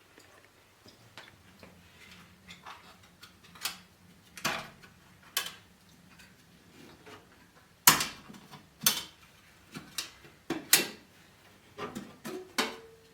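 Metal hand tools and engine parts clinking and knocking: about ten sharp, irregular hits with quieter rattles between, the loudest a little under halfway through and again near the end.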